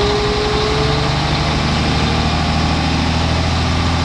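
1984 Mack concrete truck's diesel engine idling steadily.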